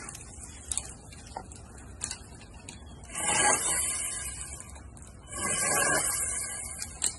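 Powerworks 60V brushed-motor electric pole saw running in two bursts of about a second and a half each, its chain cutting into an overhead branch. A few short sharp clicks come before and after.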